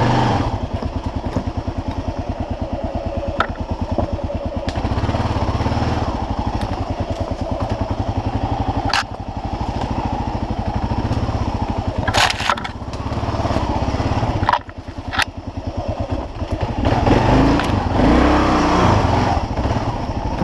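Kawasaki KLR650's single-cylinder four-stroke engine running at low trail speed with a rapid, even beat, rising and falling with the throttle. A few sharp knocks come through, and near the end the engine revs up and eases back.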